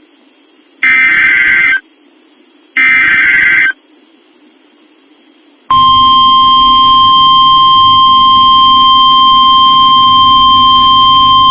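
Emergency Alert System SAME header data bursts on NOAA Weather Radio: two short, harsh digital bursts about a second long and a second apart, encoding the Shelter In Place Warning. About six seconds in, the steady 1050 Hz weather-radio alert tone starts and holds, the signal that a warning message follows.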